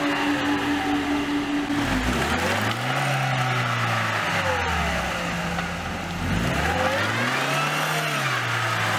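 Chevrolet Niva's engine revving up and falling back twice, about four seconds apart, as the car strains to climb out of a deep mud rut.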